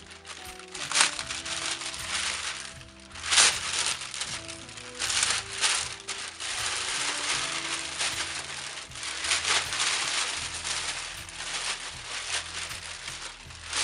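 Thin plastic bag crinkling and rustling in bursts as it is pulled off a subwoofer cabinet, with quiet music playing underneath.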